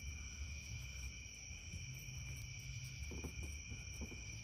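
Faint, steady high-pitched chirring of crickets, with a few soft scrapes and ticks of a metal pick cleaning oil out of a diesel vacuum pump housing about three seconds in.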